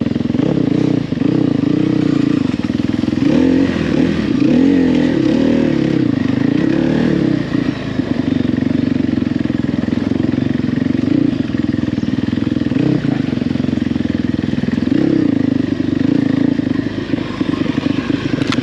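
Off-road motorcycle engine running, its revs rising and falling several times a few seconds in, then settling steadier.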